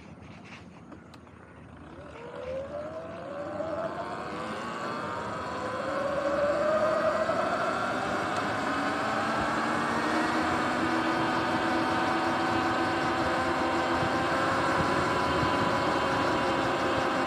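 Sur-Ron electric dirt bike pulling away: its electric motor whine rises in pitch over the first few seconds as it speeds up, then holds steady at cruising speed over a rush of wind and tyre noise.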